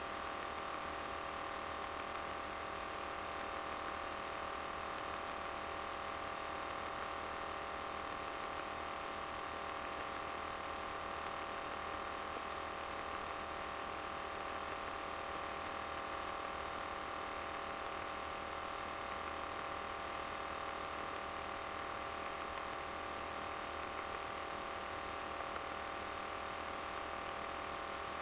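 Steady drone of an RV-9A light aircraft's engine and propeller in cruise flight, heard inside the cockpit, with a steady hum over it.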